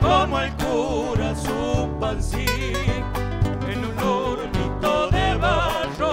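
Live Cuyo folk music: a man singing with vibrato over strummed nylon-string acoustic guitars and a drum kit.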